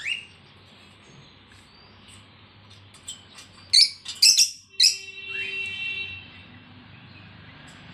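Lovebirds calling in their cage: a short rising chirp, then, about halfway through, a quick burst of loud, shrill screeching calls, followed by softer, thinner chirps.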